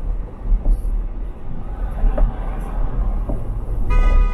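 Low road and engine rumble inside a moving truck's cab, then another car's horn honks once, briefly, near the end.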